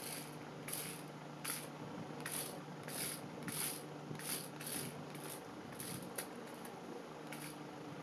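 Toy RC stunt car with mecanum roller wheels spinning in place on a tabletop: a low motor hum that drops out about five seconds in and comes back near the end, under a run of short, hissy clicks about one to two a second.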